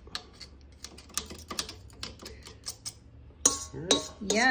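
A knife tapping and scraping ground meat off the plate of an electric meat grinder makes a string of light irregular clicks over the grinder's low motor hum. A sharp click comes about three and a half seconds in, followed by a short sliding pitched sound near the end.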